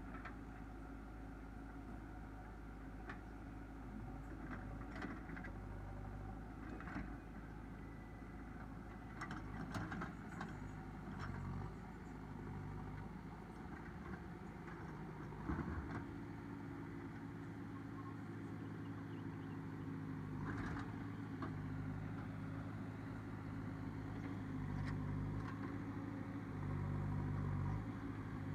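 JCB 3DX backhoe loader's diesel engine running, its note stepping up and down as the machine works, with scattered metallic knocks and clanks, the sharpest about halfway through.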